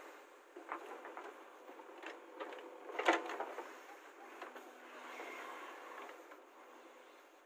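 JCB 3DX backhoe loader digging soil with its rear bucket: the diesel engine runs steadily under a string of sharp clanks and knocks from the boom and bucket, the loudest about three seconds in.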